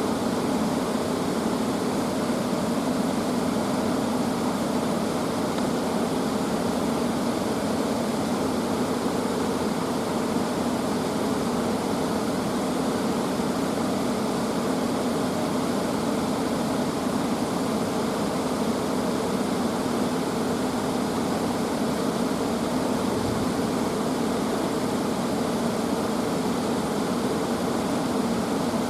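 A steady, even rushing noise with no breaks or separate sounds.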